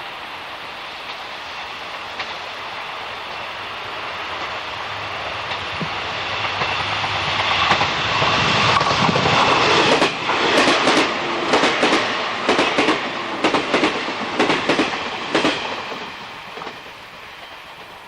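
Train passing: its running noise builds, then a run of sharp wheel clicks over the rail joints, clickety-clack, for several seconds before it fades away.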